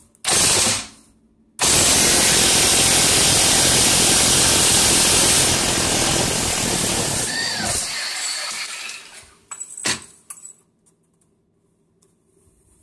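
Impact wrench with a 30 mm socket hammering loose the front axle nut of a 2001 Toyota Celica. A short burst comes first, then about six seconds of continuous running that tails off as the nut spins free. A single click follows near the end.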